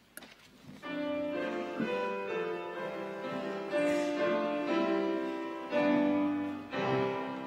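Piano playing the introduction to a hymn: slow, held chords that change about once a second, starting about a second in.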